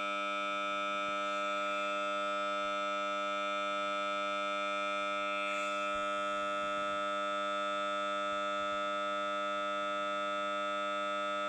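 Samsung Galaxy Note 9 loudspeaker giving out a steady, unchanging buzzing drone of many pitches at once, the phone's weird noise fault that comes on at random during playback and stops only with a reboot.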